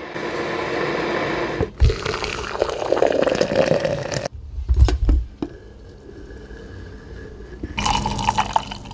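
Coffee being made in a glass French press, in short cuts: hot water poured from a kettle onto the grounds, rising in pitch as the press fills; then a few clicks and knocks; then brewed coffee poured into a ceramic mug near the end.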